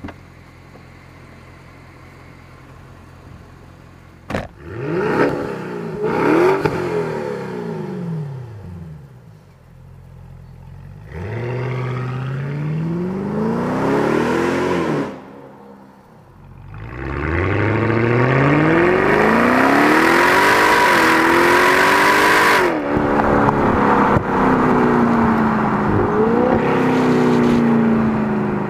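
Bentley Continental GT V8 S's twin-turbocharged 4.0-litre V8 through its sports exhaust. It idles low and steady, and a sharp click comes about four seconds in. Then come several bursts of revving and acceleration, the pitch climbing and falling away, ending in a long loud run broken by a few brief dips.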